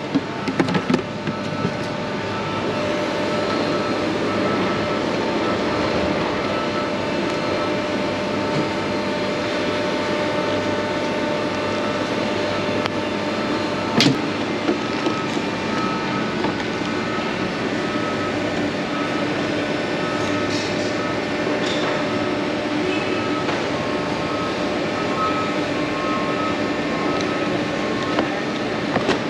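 Steady din of a busy thrift-outlet sales floor, with hands rummaging through hard plastic bins of mixed goods and one sharp knock about halfway through.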